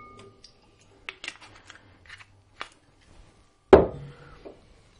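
Kitchenware handled on a counter: a ringing glass clink fades out at the start, then a few light clicks follow, and a louder knock comes a little under four seconds in as something is set down.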